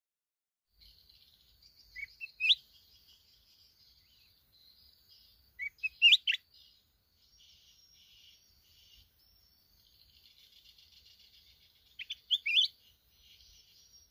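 Red-whiskered bulbul singing three short, loud, sweeping phrases, about two, six and twelve seconds in. Under them runs a faint, steady high trill of insects.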